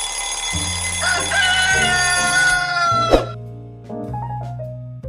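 An alarm clock ringing over music, with some tones sliding down in pitch; the ring stops and a sharp hit follows about three seconds in, leaving piano-led music with a beat.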